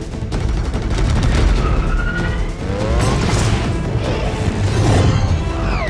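Action-movie sound mix: music under rapid gunfire and crashing impacts, with a burst of explosion-like noise about three seconds in. Whining mechanical pitch glides rise around the middle and fall near the end.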